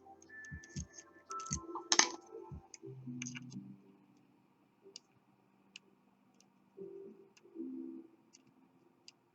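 Small sharp metallic clicks and taps of a pick working the pin stacks of a KABA Gemini dimple lock. They come in a busy cluster in the first few seconds, then thin out to single ticks about a second apart.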